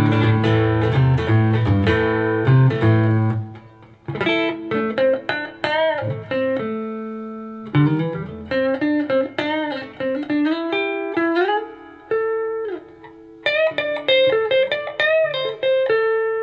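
Single-pickup Harmony electric guitar played through an amplifier: a fast strummed chord riff for the first few seconds, then, after a short break, a lead line of single notes with string bends and slides.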